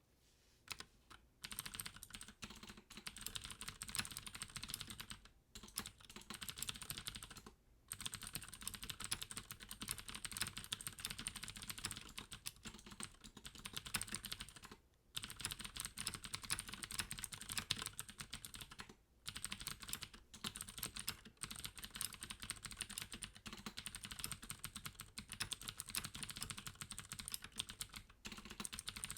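Deck Hassium Pro mechanical keyboard with clicky Cherry MX Blue switches and added sound-absorbing foam, typed on in fast continuous runs of keystrokes, broken by a few short pauses.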